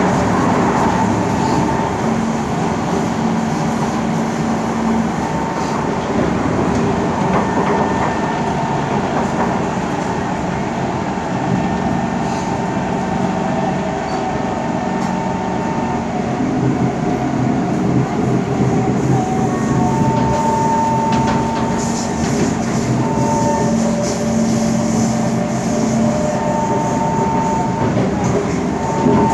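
Kawasaki C151 MRT train running between stations: steady running noise from wheels on rail, with the traction motors' tones humming in and out at a few fixed pitches.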